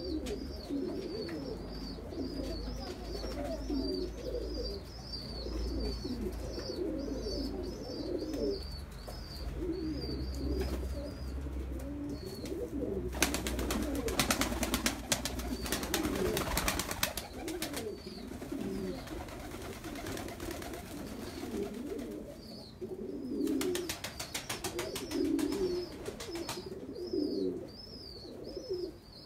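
Domestic pigeons cooing, a warbling low call that goes on throughout. A thin high chirp repeats about three times a second during the first ten seconds and again near the end. Rapid clicking or fluttering comes twice, the first time about halfway through.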